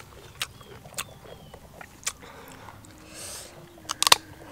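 A few small sharp clicks from handling a small green mango over a bowl of chili sauce, then a crisp crunch near the end as the unripe mango is bitten into.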